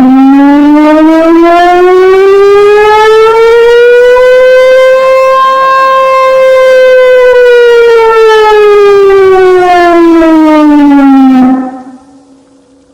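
Civil defense siren sounding one slow wave-tone wail. It starts abruptly, rises in pitch over about five seconds, holds briefly at the top, then falls back over about five seconds. It cuts off about a second and a half before the end and leaves a fading echo.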